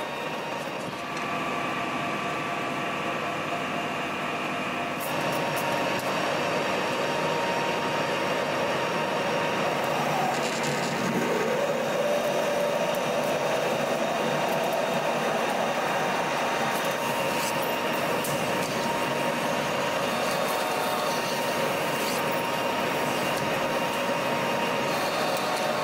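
Colchester Master 2500 metal lathe running while a twist drill in the tailstock is fed into the spinning steel hex bar, under the hum of a rotary phase converter. A steady mechanical drone with a thin held whine. It gets louder about five seconds in, and a short rising tone comes in around the middle.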